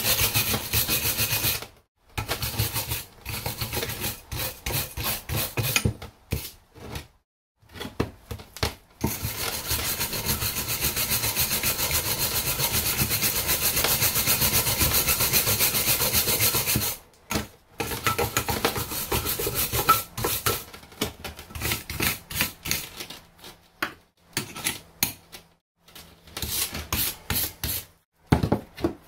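Wire brush scrubbing rust off a steel brake caliper bracket in rapid back-and-forth strokes, in bursts with short pauses; the longest run of steady scrubbing comes about a third of the way in and lasts several seconds.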